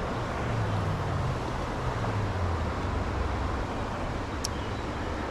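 Steady outdoor rushing noise with a low rumble that builds over the first seconds and fades after about three and a half seconds, and one faint click near the end.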